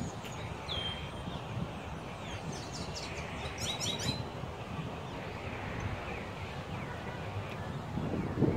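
Birds chirping outdoors: a short high whistle about a second in and a quick run of high chirps near the middle, over a steady low background rumble that swells briefly near the end.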